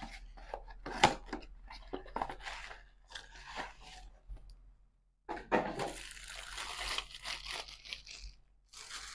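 Small cardboard box being opened by hand and a photocell with its plastic parts taken out: crinkling and tearing of packaging, with short crackles at first and a longer stretch of rustling about five seconds in.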